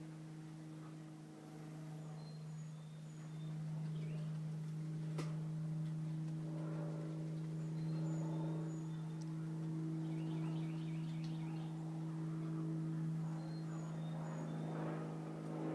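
A steady low hum, with faint short high chirps from a flock of birds every few seconds. A quick run of repeated notes comes about ten to eleven seconds in.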